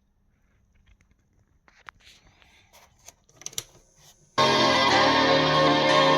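A few faint clicks, then about four seconds in music with keyboard or piano starts suddenly and plays loudly from a Sony CFS-1000L radio cassette recorder.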